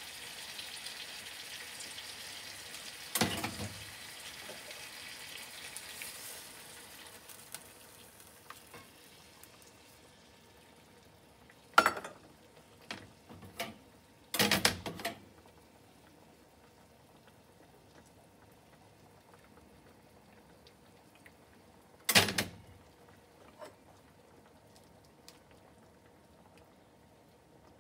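Sauce in a steel frying pan of hamburg steaks sizzling and hissing right after hot water is poured in, dying down over the first several seconds as it settles to a simmer. Then a few sharp clacks of kitchen utensils against the pan and stovetop, the loudest a double knock about halfway through and one more later.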